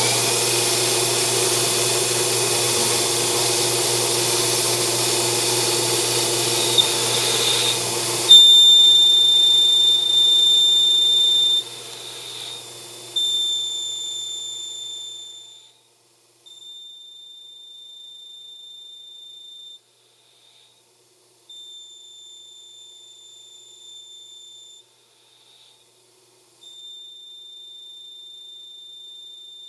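Grizzly G0602 lathe under CNC control cutting aluminium: the spindle and cut run loudly for the first several seconds, then a high steady whine takes over. After the running noise dies away, the whine comes and goes in stretches of about three seconds with short gaps.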